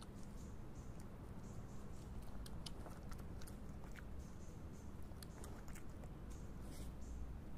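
A wild canid chewing and licking food off a concrete path, close to the microphone. The chewing is a run of short, irregular crunching clicks and smacks.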